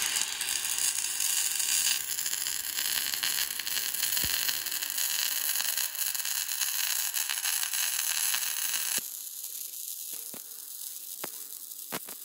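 MIG welding arc burning metal-cored steel wire: a steady, dense hiss with fine crackle. About nine seconds in it drops sharply to a much fainter hiss with a few clicks.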